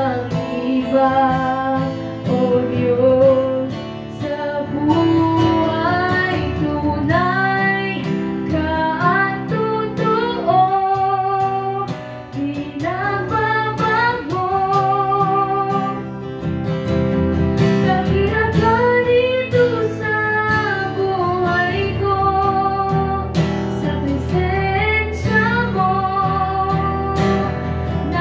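A female voice singing a slow Tagalog worship song, accompanied by strummed acoustic guitar.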